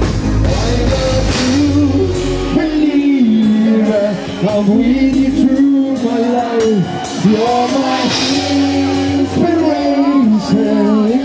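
Live band music with a held, sung lead melody line. The bass and drums drop out about a second and a half in, leaving the voice over a thinner backing.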